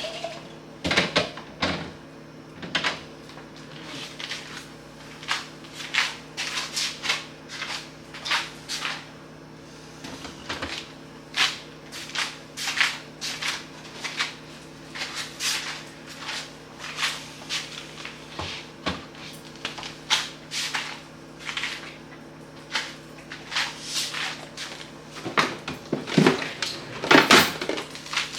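Irregular clacks and knocks of containers and bottles being taken out of and set back on refrigerator shelves and door bins, several in quick succession at times and loudest near the end, over a steady low hum.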